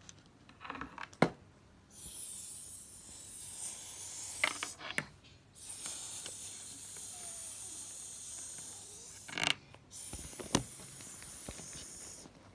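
A steady hiss in three long stretches of a few seconds each, with sharp clicks in the gaps between them. The loudest sound is a single click about a second in.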